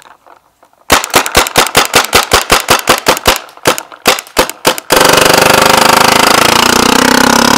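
Tippmann A5 paintball marker firing a rapid string of about two dozen shots, about seven a second, thinning to a few scattered shots. These are followed by a loud, steady hiss lasting about three seconds.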